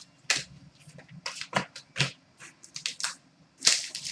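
Trading cards being handled: a string of short sharp snaps and slides as cards are flicked through one at a time, with a longer, louder rustle near the end.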